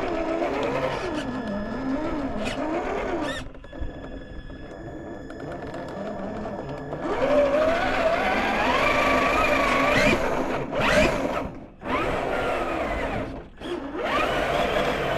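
Traxxas TRX4 1/10-scale RC crawler's electric motor and gearbox whining as it drives over rocks, the pitch rising and falling with the throttle. About halfway through the whine climbs steadily in pitch, then cuts out briefly twice near the end.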